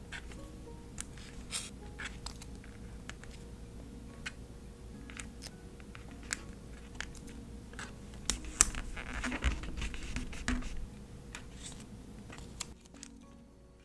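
Tweezers handling small kiss-cut paper stickers, peeling them off the sheet and pressing them onto a notebook page: scattered small sharp clicks and ticks with light scratchy rustling, busiest about eight to ten seconds in.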